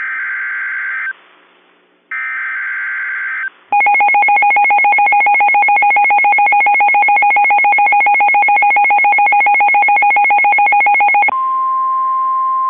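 Emergency weather alert tones for an extreme wind warning. Two short bursts of screeching digital header data are followed by a loud, rapidly pulsing attention tone for about seven seconds. The alert then changes to a steady single tone of about 1 kHz, the weather-radio warning alarm tone.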